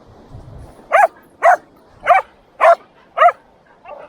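A dog barking repeatedly: five sharp barks about half a second apart, then a softer one near the end.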